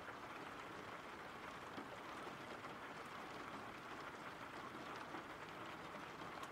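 Faint, steady rain: an even hiss of falling rain with scattered small drop taps.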